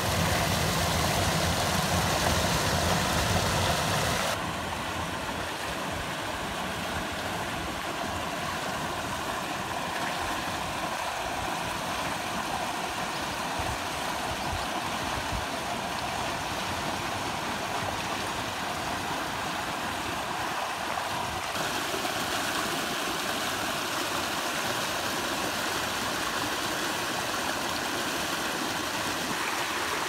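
Stream water rushing over rock ledges and small cascades: a steady rushing noise, louder for the first four seconds and then settling to a lower level.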